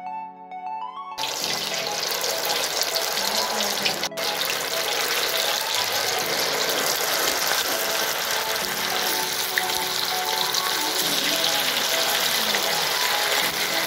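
Battered chicken pakode pieces deep-frying in hot oil in a kadai: a loud, steady sizzle and crackle. It starts about a second in and breaks off for an instant about four seconds in.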